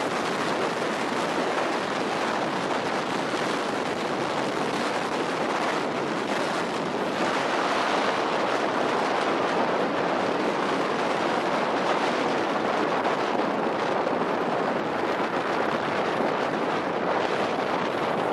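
Container freight train rolling past at close range: a steady rush and rumble of steel wheels on the rails and rattling wagons, a little louder from about seven seconds in.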